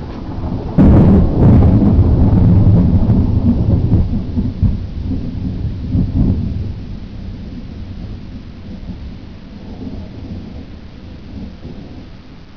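Thunder: a sudden loud crack about a second in, then a low rumble that rolls on for several seconds and slowly fades. Steady rain falls throughout.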